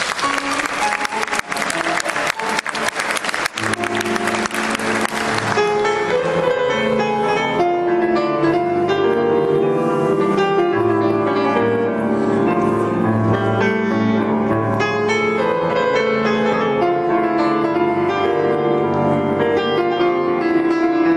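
Audience applauding for about the first five seconds, then a grand piano playing a melody with a bass line on its own.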